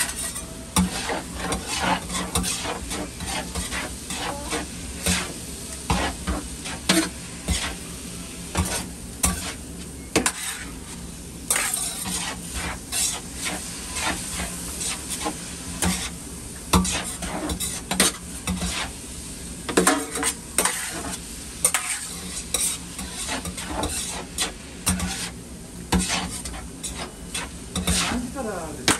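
Food sizzling on a flat iron teppan griddle, with a metal spatula scraping and clacking against the iron several times a second over a steady hiss.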